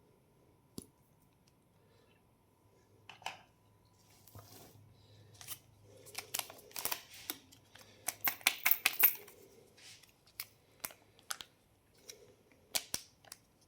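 Candy packaging being handled and opened: scattered sharp clicks and snips, with a dense stretch of crinkling and tearing plastic in the middle.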